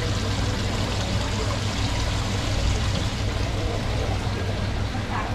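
Seawater running and bubbling in a live seafood tank, a steady flow over a constant low hum.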